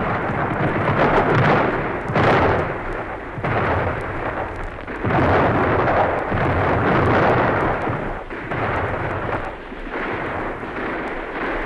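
Staged battle sound effects: massed musket fire and cannon shots blending into a continuous roar that swells and eases every second or two, with sharp shot cracks on top.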